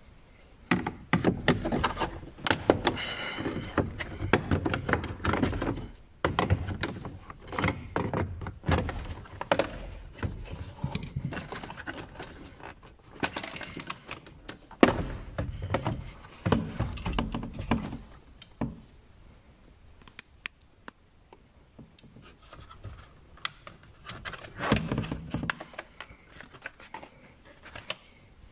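Hard plastic clicking, knocking and rattling as the Renault Twingo's centre dash panel around the air vents and hazard switch is pried with a plastic trim tool and pulled free of its clips. The sound comes in bursts of sharp clicks and knocks with short quiet pauses between them.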